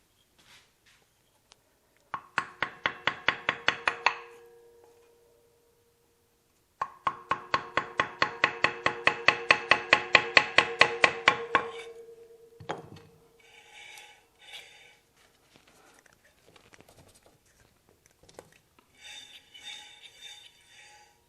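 Rapid, evenly spaced light tapping on the seized rotor of a Gast rotary vane vacuum pump, about eight taps a second, in two runs, with the metal housing ringing under the taps. A single thump follows, then some softer scraping and rubbing as the stuck rotor is worked free.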